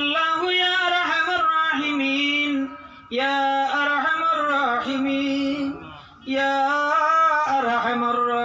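A man singing solo and unaccompanied in long, held, wavering phrases: three phrases with short breaths between them.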